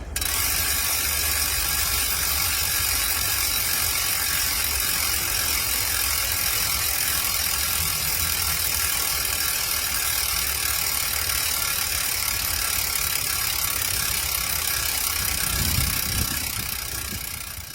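Sagmit Secret V12 bicycle hub freewheeling with the steady, crisp, high-pitched buzz of its ratchet engagement, a non-pawl design. It starts abruptly, has a brief low thump near the end, then tails off.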